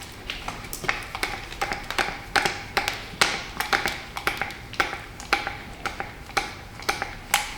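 Hand grease gun being pumped, with sharp clicks about twice a second, each carrying a slight ring, as grease is forced into the pin fittings.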